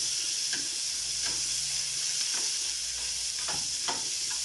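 Ginger sizzling in hot oil in a frying pan, a steady hiss, with a spatula scraping and tapping the pan several times as it is stirred.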